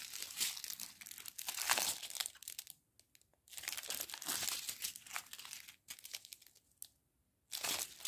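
Small clear plastic bags of diamond painting drills crinkling as they are handled, in irregular bursts with two short pauses.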